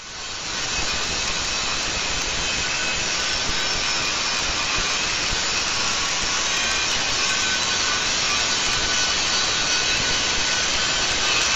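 Hilti angle grinder with its disc grinding a steel form panel: a steady loud grinding hiss with a faint whine. It builds quickly in the first second as the disc bites into the metal, then holds even.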